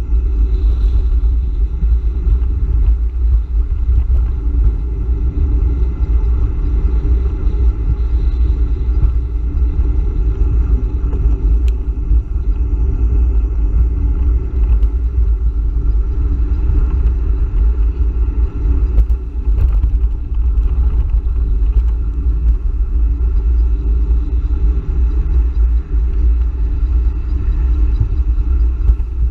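Steady low wind and road rumble on the microphone of a handlebar-mounted camera on an electric bicycle riding along a highway shoulder, with highway traffic running alongside.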